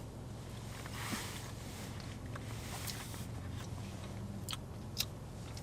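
Quiet chewing of sour gummy candy, with a few small sharp clicks, over a steady low hum of a car interior.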